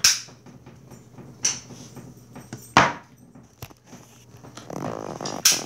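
Aerosol shaving cream can dispensing in several short, sharp hissing bursts a second or more apart. Rustling handling noise comes near the end.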